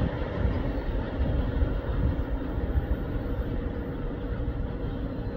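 Covered hopper cars at the tail of a manifest freight train rolling away down the track, a steady rumble of wheels on rail that slowly fades.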